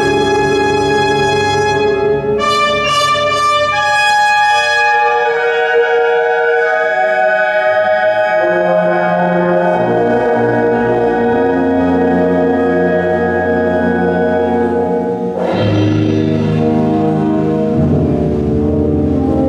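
Symphonic wind band playing a Spanish processional march, brass to the fore with trumpets and trombones holding slow sustained chords. A strong low-brass chord comes in near the end.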